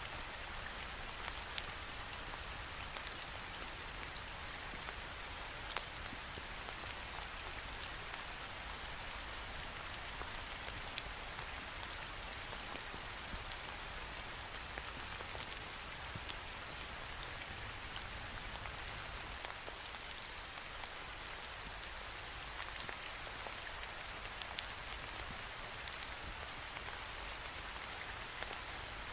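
Steady rain falling against a window pane, an even hiss with many scattered sharp drop taps.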